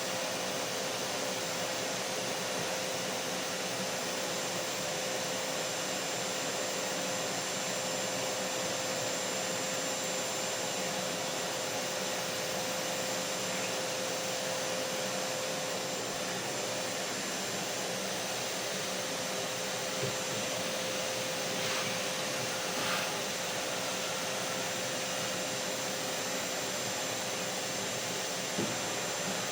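Vacuum cleaner running steadily: an even whooshing motor and airflow noise with a constant hum tone through it, and a couple of small brief knocks in the second half.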